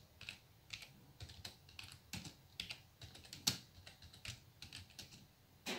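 Typing on a computer keyboard: a quick, irregular run of key clicks, with one louder keystroke about three and a half seconds in.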